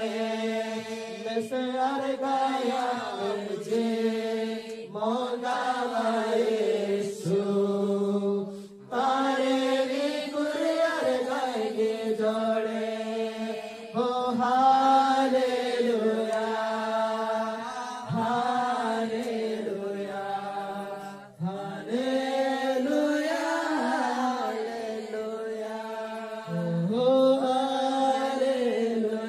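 A group of worshippers singing a Christian worship song together without instruments, in long, drawn-out phrases separated by short breaths.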